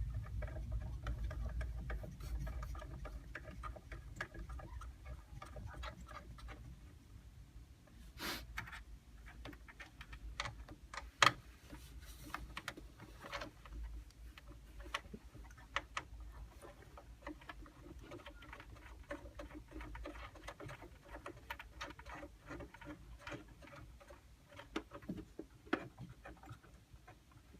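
Scattered light clicks and taps of hands working on computer parts during a PC build, one sharper click about eleven seconds in.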